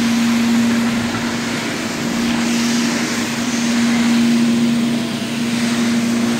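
Zipper SS Super Spinner rotary carpet-extraction tool running on truckmount vacuum as it is pulled across carpet: a steady rush of suction with a constant low hum, swelling slightly in level.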